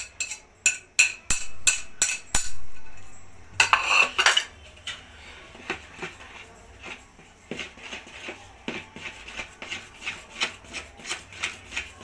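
A knife clicking and scraping on a plate as lemon zest is knocked off it into a bowl, a quick run of sharp clicks in the first couple of seconds and a longer scrape around four seconds in. Then a utensil stirring thick cake batter, with soft rhythmic clinks against the bowl about two or three a second.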